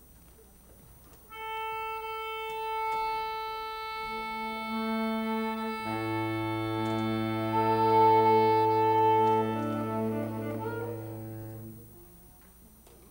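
Saxophone quartet of soprano, alto, tenor and baritone saxophones playing a slow, sustained passage. A single line enters about a second in, a second voice joins a few seconds later, and the low baritone and remaining voices come in about six seconds in; the chord swells, then stops about twelve seconds in.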